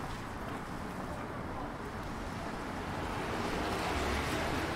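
Rainy city street ambience: a steady wash of wet-street noise that swells over the last couple of seconds, with faint voices near the end.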